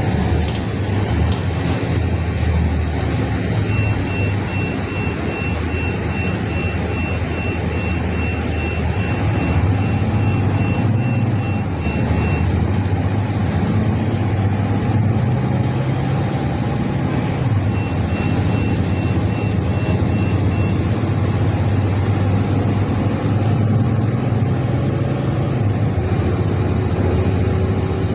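Inside a moving city bus: steady engine hum and road noise. A high, rapidly pulsing beep sounds from about four seconds in for roughly eight seconds, and again for a few seconds near the eighteen-second mark.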